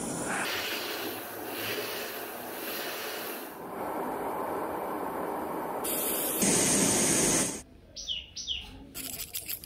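Handheld butane blowtorch flame hissing steadily as it heats a steel file, cutting off abruptly about three-quarters of the way in. After it stops come two short high chirps and a few light clicks.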